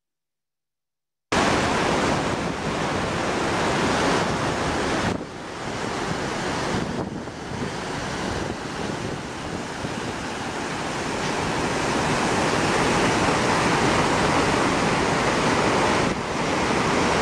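A large waterfall pouring over steep rock slabs, recorded right beside the falls: a loud, steady rushing. It starts suddenly about a second in, dips briefly a few times, and cuts off abruptly at the end.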